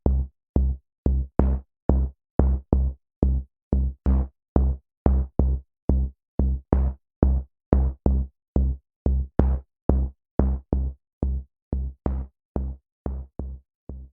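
Static bass sound effect: short synthetic bass hits repeating about twice a second. Each is a deep thump with a crackly static top. The hits fade out over the last couple of seconds.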